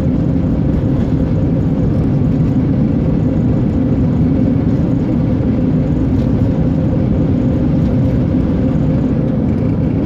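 Steady road noise inside a moving car: engine and tyres humming evenly on asphalt at cruising speed.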